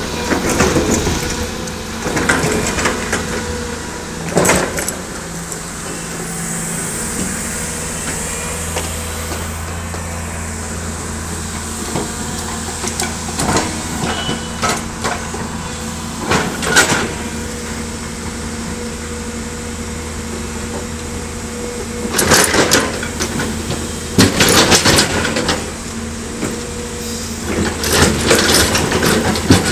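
L&T PC200 hydraulic excavator's diesel engine running steadily under load, with repeated bursts of clanking and scraping as the bucket works against rock, about a dozen clusters of knocks spread irregularly through.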